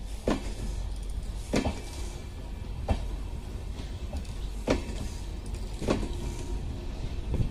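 LHB high-capacity parcel vans rolling past: a steady low rumble of the wheels on the rails, broken by a sharp metallic clack roughly every second and a half as wheelsets cross a rail joint.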